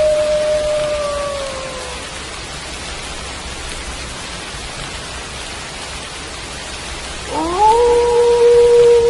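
Wolf howling over steady rain. One howl slides down and fades out in the first two seconds; about seven seconds in, another rises in pitch and then holds one long steady note.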